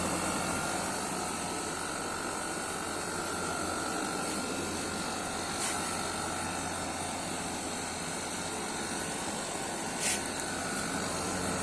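Window air conditioner running steadily, its compressor and fan going, just recharged with R410a while the pressure settles. Two brief clicks, about six and ten seconds in.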